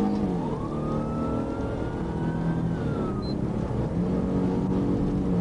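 Police car engine running hard under acceleration, heard from inside the car, its pitch dropping and climbing again as it shifts. A siren wails over it with one slow rise and fall.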